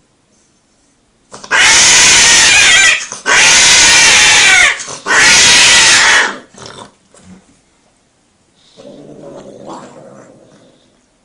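Cats yowling: three very loud, drawn-out wails, each about a second and a half, rising and falling in pitch. A quieter, lower growling yowl follows near the end.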